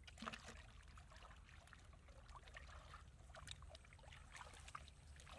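Faint sloshing and dripping of shallow muddy ditch water as hands grope through it for fish, with scattered small irregular splashes.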